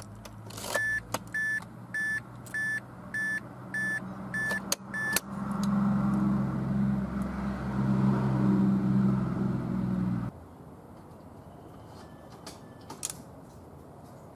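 A car's dashboard warning chime beeps about eight times, then the starter spins the engine with an even, steady whir for about five seconds and stops suddenly. The engine does not fire; the steady, unpulsed cranking fits an engine that has lost its compression.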